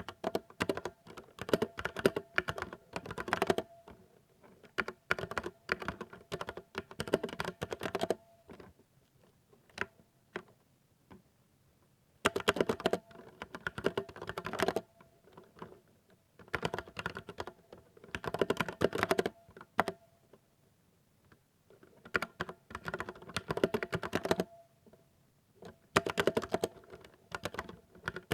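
Typing on a 60% mechanical keyboard with silver (linear) switches: fast runs of crisp keystrokes in bursts of a few seconds, with short pauses between them and a faint ring from the case or springs.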